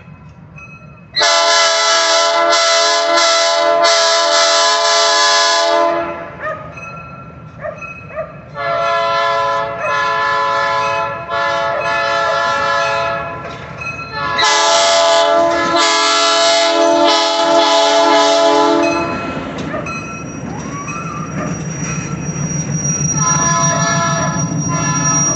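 Diesel locomotive's air horn sounding three long blasts as the train approaches. After the horn stops, the locomotive's engine runs with a low pulsing rumble as it passes, and a thin high wheel squeal sets in as the passenger cars roll by.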